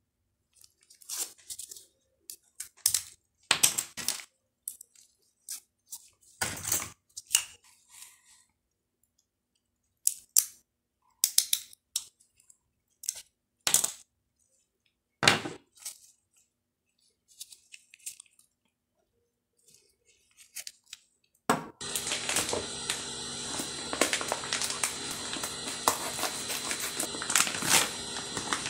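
Irregular sharp clicks and taps of hard 3D-printed plastic parts being handled and pressed together. About three-quarters of the way through, a louder, dense continuous crackle takes over, which fits a plastic bag being crinkled open around a filament spool.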